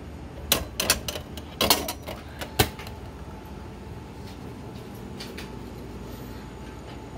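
Metal delivery hatch of a retro udon vending machine knocking and rattling as the hot udon bowl is taken out: a quick cluster of sharp knocks in the first three seconds, then only a steady low hum.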